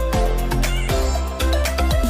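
Background music: an electronic track with a steady beat and heavy bass.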